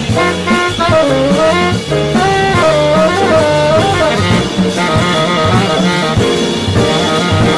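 Live jazz: a tenor saxophone solos in a flowing melodic line with scoops and bends in pitch, over piano, upright bass and a drum kit's cymbals.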